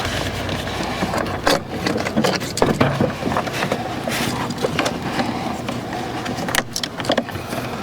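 Handling sounds from work on a truck door: scattered clicks, knocks and rustling as the plastic weather shield and door panel are pressed and moved, over a low steady hum.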